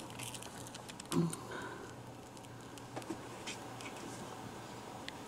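Quiet room tone with a few faint clicks and taps as the camera is moved in close to the glass tank, and one brief louder low sound about a second in.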